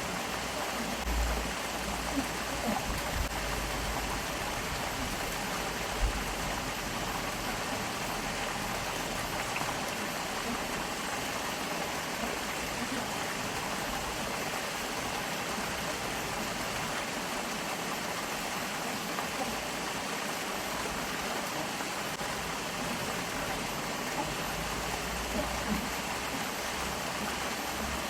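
Stream water flowing steadily, an even rushing sound, with a few brief low bumps in the first several seconds and again near the end.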